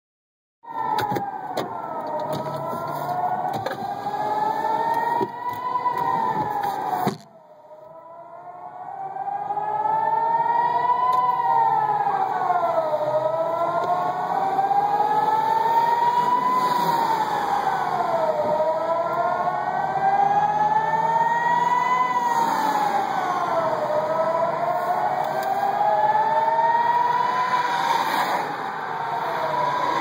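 Civil-defence warning sirens wailing slowly up and down, sounding a rocket alert. Several sirens run out of step, each rise and fall taking about five seconds. The sound drops off suddenly about seven seconds in, then swells back to full over the next few seconds.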